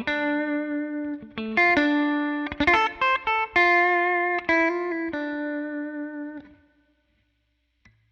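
Electric guitar with Zexcoil Legacy Signature P90-size pickups, played into a Helix Twin Reverb amp model with no other effects: a phrase of picked single notes and chords that rings out and stops about six and a half seconds in.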